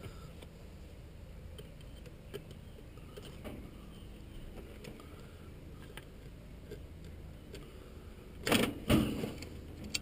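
Faint clicks and rustling as wires and spade connectors are handled and pushed onto the terminals of a furnace blower control board, over a low steady hum. Two loud scuffs about half a second apart come near the end.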